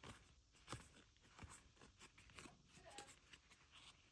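Faint soft ticks about every half second: sports trading cards being flipped through one by one.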